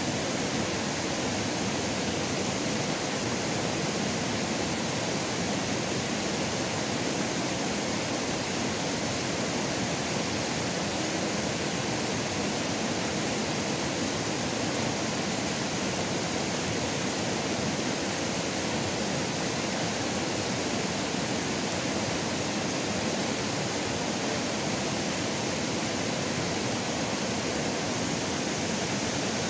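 Shallow rocky river rapids rushing steadily, a dense, even hiss of white water over stones.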